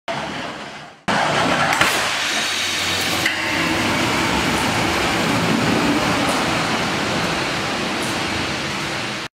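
Side-pole crash test of a 2020 Nissan Leaf: a sudden loud crash about a second in, with sharp cracks, then a steady rumbling noise that cuts off suddenly at the end.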